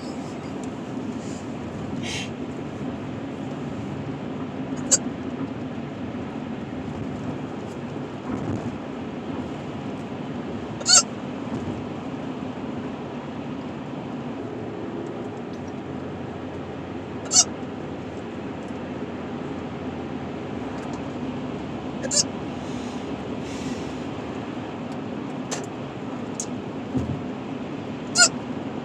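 A woman's hiccups: short, sharp hics about six times, several seconds apart, over the steady road and engine hum inside a moving car.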